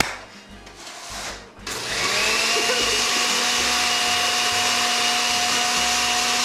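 Countertop blender switched on about two seconds in and running steadily, a motor whine over the churn of avocados and water being puréed.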